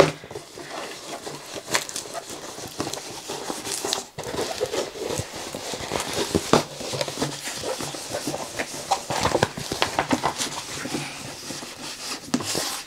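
Diamond painting canvas and its plastic cover film rustling and crinkling while it is rolled back and handled, with irregular crackles and taps.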